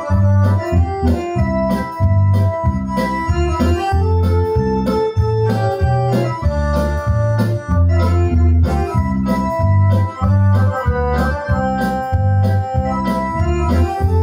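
Roland V-Accordion (a digital accordion) playing a melody over a steady, rhythmic bass line and drum beat.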